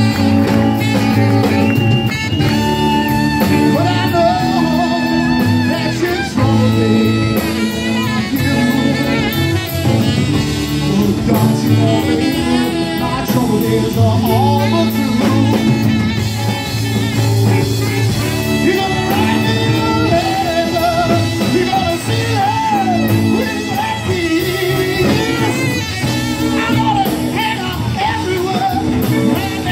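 Live rockabilly band playing a song with upright bass, drum kit, saxophone and guitars.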